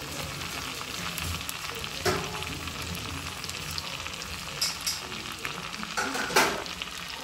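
Suji halwa sizzling as it fries in oil in a pan, stirred, with a few scrapes against the pan; the loudest comes about six seconds in.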